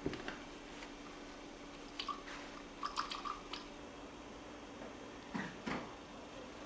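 Synthesized liquid sounds from a phone's speaker as the phone is shaken: a few sparse drips and small splashes. The quantity of liquid heard stands for the battery power remaining.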